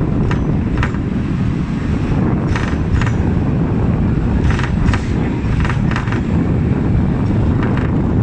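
Hong Kong double-decker tram running along its tracks, heard on board: a loud, steady low rumble of the car and its wheels, with irregular sharp clacks and rattles every second or so.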